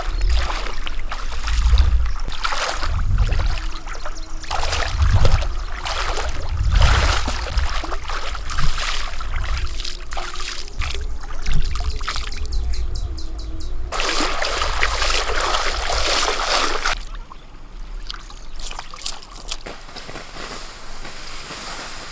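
Water splashing and sloshing in irregular surges, with low rumbling thumps underneath; it quietens to lighter trickling about three quarters of the way through.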